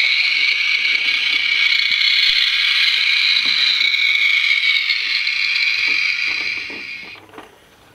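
Dickie Toys toy garbage truck's electronic sound effect, set off by its yellow button, playing as a steady, tinny mechanical noise from the toy's small speaker. It fades out near the end, with light clicks of the plastic truck being handled under it.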